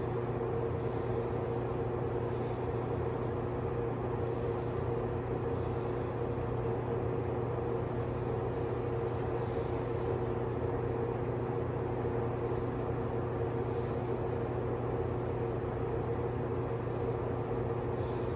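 Steady mechanical hum with an unchanging low drone and a couple of constant mid tones, like a machine or traffic running in the background.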